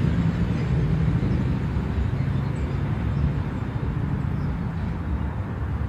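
Freight train behind an electric locomotive running along the tracks and moving away, a steady low rumble that eases slightly toward the end.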